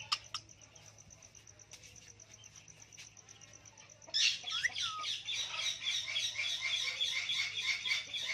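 A parrot breaks into rapid, dense chattering calls about four seconds in, with a couple of short sliding whistles at the start of the run. Before that there are only a few faint clicks.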